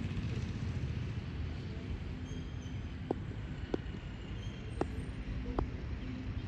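Steady low rumble of outdoor background noise at an open-air ground, with four faint sharp clicks around the middle.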